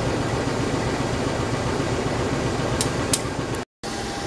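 Steady idling hum of a stopped diesel passenger train, its engines and coach air-conditioning running while it stands waiting. Two faint ticks come about three seconds in, and the sound cuts out briefly near the end before a slightly quieter hum resumes.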